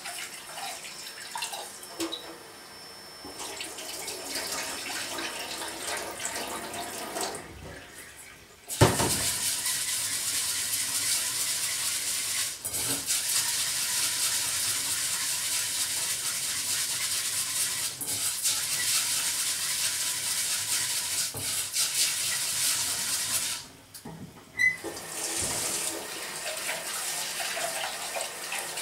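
Kitchen tap water running into a stainless steel pot while rice is swished by hand to wash it. The flow stops briefly about eight seconds in, then runs hard and steady until it stops again for a moment about twenty-four seconds in, and resumes near the end.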